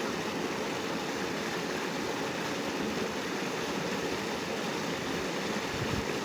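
River water rushing past, a steady, even wash with no breaks.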